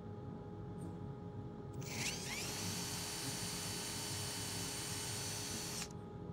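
Cordless drill spinning up about two seconds in with a quick rising whine, then running steadily at speed as a small bit drills into a carved wooden fish decoy, stopping abruptly near the end.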